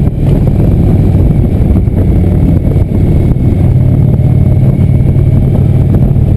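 Cruiser motorcycle engine running steadily at road speed, heard from the rider's seat as a loud, low, even drone.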